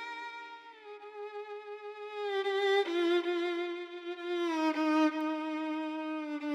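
Solo violin playing a slow melody of long held notes, with only a few changes of pitch.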